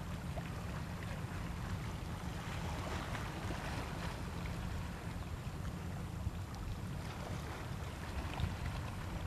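Steady low rumble of wind buffeting the microphone, with a light even hiss of open-water ambience above it.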